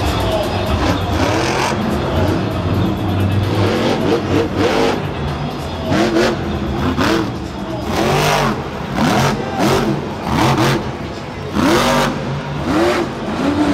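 Monster truck's supercharged big-block V8 revving hard in repeated blips, its pitch rising and falling about once a second as the truck drives and throttles across the dirt.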